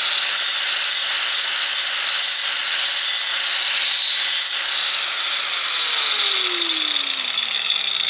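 Ozito angle grinder running at full speed with a diamond blade cutting into a clay brick, a steady high whine. About five and a half seconds in the motor is switched off and winds down, its whine falling steadily in pitch.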